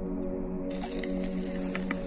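Slow ambient background music with sustained tones. About a second in, a steady hiss with a few clicks and scrapes joins it: a canister camp gas stove burning under a small pot, with a spoon stirring the food.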